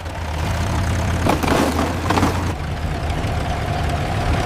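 An engine idling with a steady low hum, with a few short knocks about a second and two seconds in.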